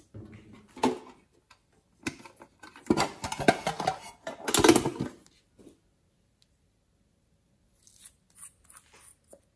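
Close-up handling noises of small hard objects: a knock about a second in, dense clattering and rustling while a printed tin box is picked up and handled, then a few faint clicks near the end as the cap of a glittery cosmetic tube is worked.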